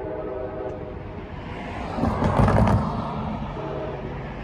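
A multi-note locomotive air horn sounding from an approaching train, blowing for the grade crossing: one blast ends about a second in and another starts near the end. Between the two, about two seconds in, comes a louder burst of rumbling noise.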